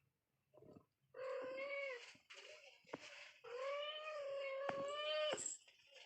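A cat meowing: a call of about a second, a short one, then a long drawn-out meow of nearly two seconds held at a steady pitch.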